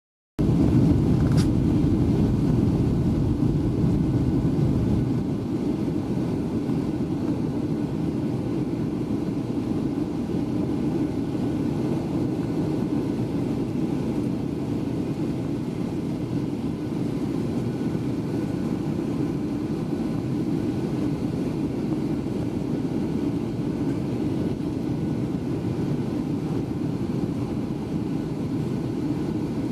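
Steady engine and airflow noise inside the cabin of a Boeing 737-800 in flight, from its CFM56-7B engines. It drops a little in level about five seconds in, and there is a brief click about a second in.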